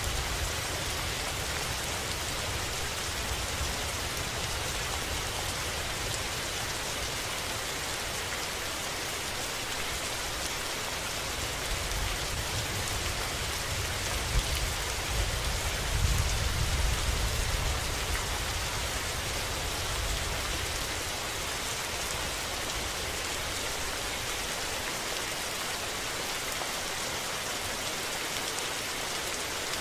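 Steady rain falling, an even hiss of drops. A low rumble of distant thunder swells and fades about halfway through.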